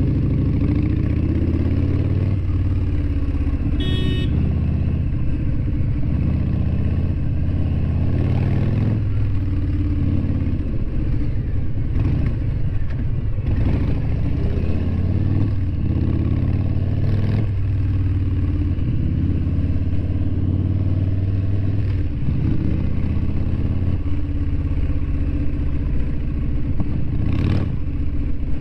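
Harley-Davidson V-twin motorcycle engine running, heard from the rider's seat, its rumble rising and falling as the throttle is opened and closed in slow traffic. A short high beep sounds about four seconds in.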